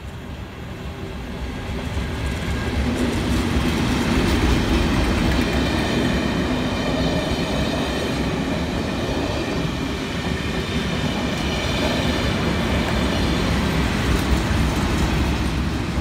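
Class 37 diesel locomotives with English Electric V12 engines hauling a rake of measurement coaches past at speed. The engine drone and wheel noise build over the first few seconds as the leading loco comes close and passes, then the coaches' wheels keep rumbling by.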